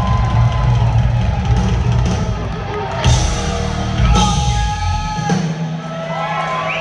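Live rock band playing, drums pounding under the music, with two loud crash hits about three and four seconds in. Near the end the drums drop out, leaving a few held notes.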